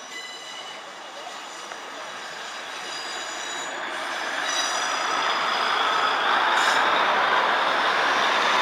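Class 156 Super Sprinter diesel multiple unit on the move, its running noise growing steadily louder as it nears. High-pitched wheel squeal shows now and then in the first half.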